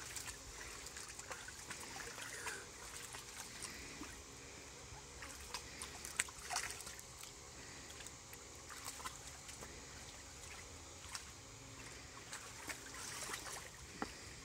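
Faint trickling and sloshing of water in a shallow plastic kiddie pool, with small scattered splashes as a dog wades through it and a child moves about.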